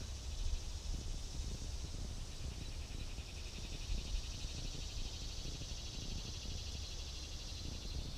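Wind buffeting the microphone with an uneven low rumble, under a steady, rapidly pulsing high insect trill that grows stronger a couple of seconds in.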